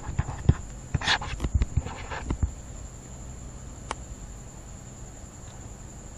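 Background noise of a home recording setup: a steady high-pitched electrical whine over a low hum. In the first two and a half seconds there are several soft knocks and scratchy rustles, and a single click comes about four seconds in.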